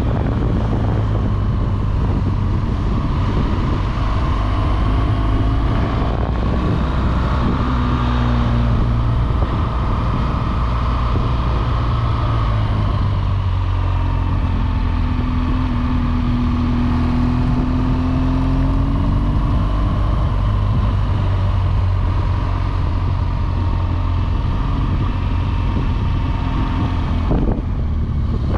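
BMW R1200GS Adventure motorcycle's boxer-twin engine running at a steady cruise, with wind rushing over the microphone.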